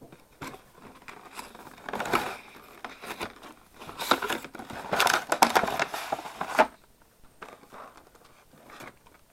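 Packaging of a trading-card collection box being torn open and crinkled by hand, in uneven bursts, loudest in a run of rustling and tearing a few seconds in, then dying down to light handling near the end.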